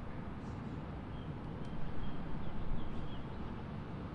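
Low wind rumble on the microphone with a small bird giving short chirps several times, and a single sharp click about one and a half seconds in.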